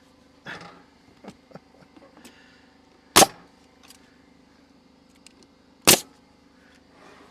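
Pneumatic stapler firing twice into a wooden hive box, two sharp shots about three seconds apart, with a few light clicks and knocks of handling between them over a faint steady hum.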